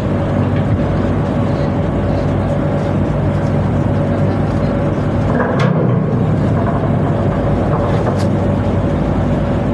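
Tugboat machinery running steadily, a low hum under a steady higher whine, with two sharp clicks partway through.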